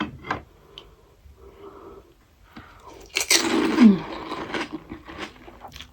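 Close-up mouth sounds of eating pani puri: crisp puri shells crunching and being chewed, in sharp clicks. About three seconds in comes a louder noisy burst of mouth and breath sound ending in a short falling hum, followed by more small crunches.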